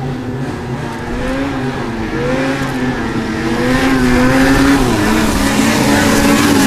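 Snowmobile engine running hard across open water, its pitch wavering up and down as the revs change, growing louder about halfway through.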